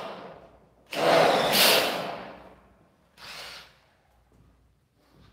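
Tool work on a steel door frame at its base: a loud, harsh grating burst of metal about a second in, lasting just over a second, then a shorter, fainter one about three seconds in.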